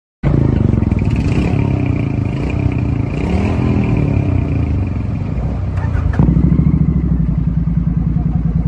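Royal Enfield Bear 650's parallel-twin engine running, with a brief blip of revs that rises and falls about three seconds in. About six seconds in, the note changes suddenly and runs louder and steadier.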